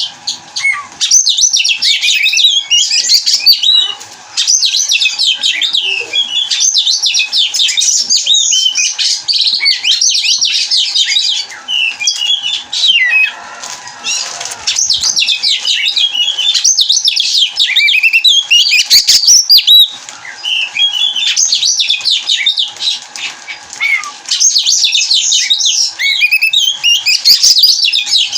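Oriental magpie-robin (kacer) singing in breeding condition: long runs of rapid, varied high whistles and chattering notes, broken by several short pauses.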